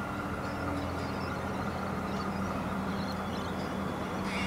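Comeng electric multiple unit running slowly at a station platform, a steady electrical and mechanical hum. A short hiss is heard near the end.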